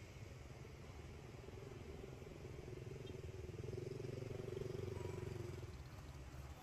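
Engine of a passing motor vehicle, a low drone that swells from about two seconds in to a peak near five seconds, then fades.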